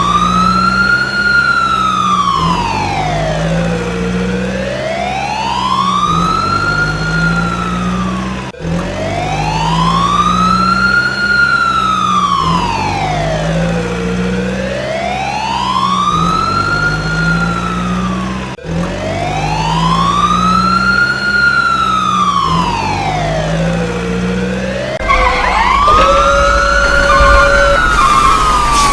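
Electronic siren wailing slowly up and down, one full rise and fall about every six seconds, over a low repeating electronic beat. Near the end, other electronic tones and short beeps join in.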